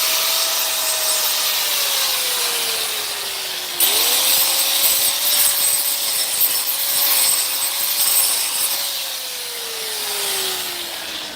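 Power tool sawing wood, its motor whine sagging in pitch, picking up sharply about four seconds in, wavering, then winding down near the end, over a hissing cutting noise.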